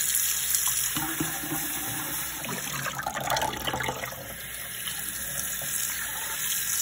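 Cold tap water running steadily into a bowl in a stainless-steel kitchen sink, with splashing as hands swish fish fillets around in the water to rinse them.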